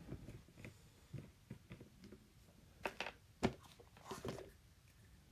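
Quiet handling noise of small objects on a desk: scattered light clicks and knocks, two sharper clicks about three seconds in, half a second apart, then a brief rustle.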